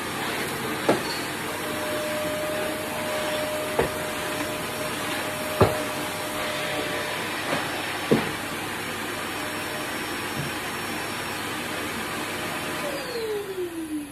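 Vacuum cleaner running steadily, with a few sharp knocks. Near the end it is switched off and the motor's whine falls in pitch as it winds down.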